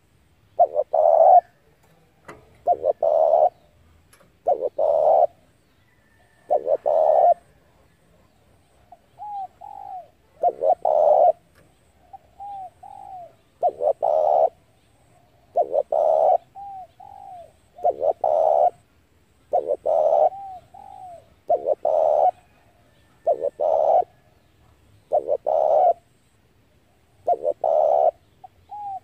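Spotted dove cooing: loud phrases repeating about every two seconds, with softer rising-and-falling coo notes between some of them.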